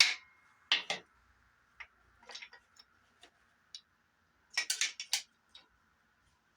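Irregular sharp metallic taps and clinks, with a quick cluster of several about two-thirds of the way through, as main bearing caps are tapped and worked loose from a worn-out Dodge 318 V8 block.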